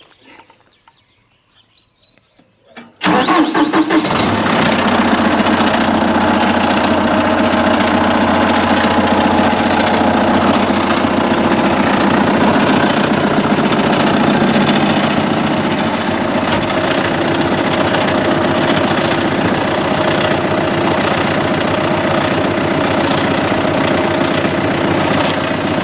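John Deere 5100M tractor's diesel engine starting about three seconds in, then idling steadily.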